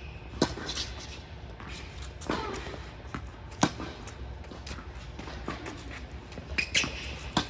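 Tennis rally on an indoor court: about five sharp pops of rackets striking the ball and the ball bouncing, a second or more apart, ringing out in the large hall. The loudest is a forehand hit close by about three and a half seconds in, with shoe scuffs between the shots.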